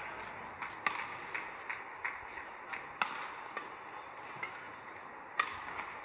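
Badminton rally: rackets striking the shuttlecock in a string of sharp, irregularly spaced knocks about every half second to second, over a quiet hall.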